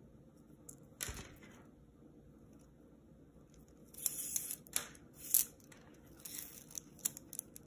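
Plastic pony beads on a beaded cuff rubbing and clicking together as the cuff is picked up and turned in the hands, with the string drawn through the beads. The sound comes in short scratchy bursts: one about a second in, then a run of them from about four seconds on.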